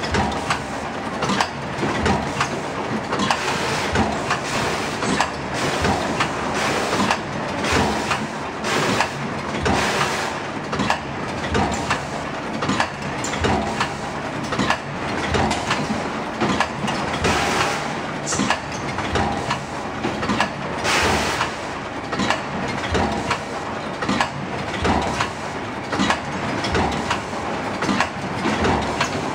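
VFFS bag packing line running: a continuous busy clatter of knocks from its conveyors and pushing mechanisms.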